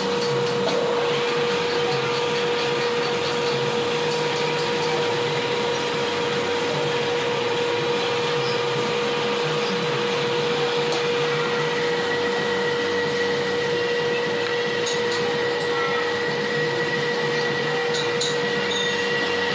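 Milling machine running steadily: a constant mechanical whine over a dense hum, with a higher tone joining about halfway through.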